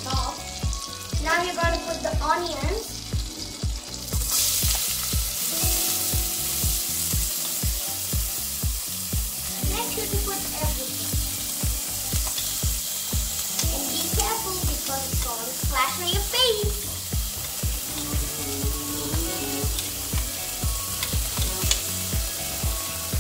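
Chopped onions sizzling as they fry in hot melted butter in a stainless steel pressure cooker. The loud sizzle starts suddenly about four seconds in as the onions hit the butter, over background music with a steady beat.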